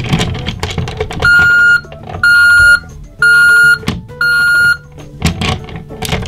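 Electronic sound effect from the talking Avalanche bulldozer toy's speaker, set off by raising its shovel: four loud, steady beeps about a second apart. Plastic handling clicks come before and after.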